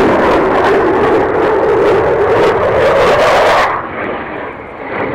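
Eurofighter Typhoon's twin Eurojet EJ200 turbofans producing a loud jet roar with a ragged, crackling edge during a display pass. About three and a half seconds in the sound drops suddenly to a quieter, duller jet noise.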